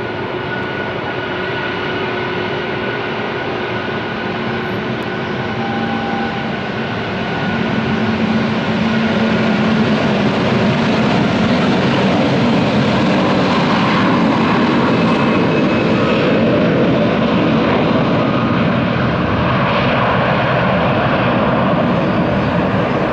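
Airbus A330 jet engines spooling up to takeoff thrust: a steady whine at first, then a roar that builds over several seconds and holds loud.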